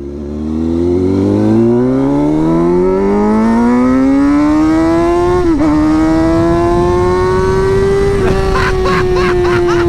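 Straight-piped Kawasaki ZX-6R inline-four revving loud, its pitch climbing steadily for about five seconds to high revs, with a brief blip. It then holds there and eases back slightly near the end.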